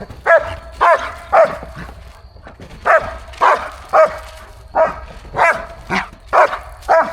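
Dog barking repeatedly in short, high barks, about two a second, with a brief pause near two seconds in.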